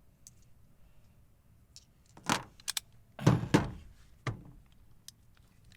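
Metallic clinks and knocks, several in quick succession about two to four and a half seconds in: cartridges being handled and unloaded from a revolver's cylinder.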